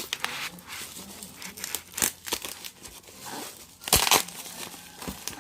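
Packaging being handled, crinkled and torn open, in irregular short crackles with a louder tearing burst about four seconds in.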